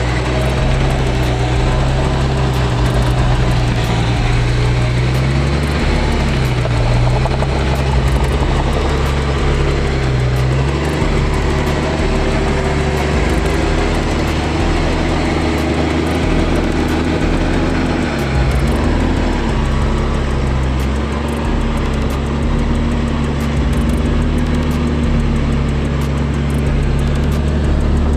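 Vehicle engine running steadily, its pitch dipping briefly several times as the revs drop and pick up again.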